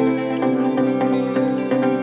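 Background music: plucked-string instrumental with a steady rhythm of picked notes.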